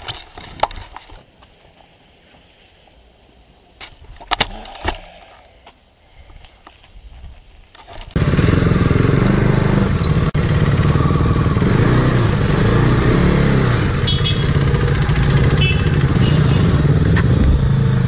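A few short knocks and clatters, then from about eight seconds in the loud, steady running of motorcycle engines idling.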